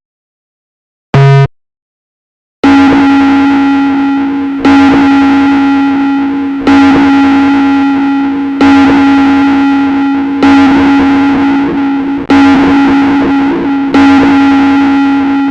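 A brief pitched electronic blip about a second in. Then one heavily distorted, effects-processed instrument note is struck seven times, about every two seconds, each hit sustaining and fading slightly before the next.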